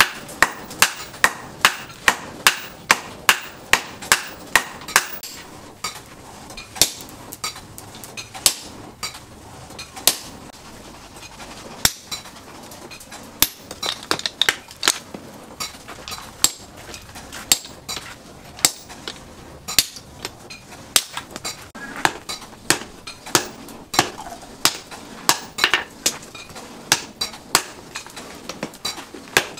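Hammer blows on red-hot leaf-spring steel laid on a steel post anvil: sharp, ringing metal strikes, in steady runs of about two a second with sparser blows and short gaps between the runs.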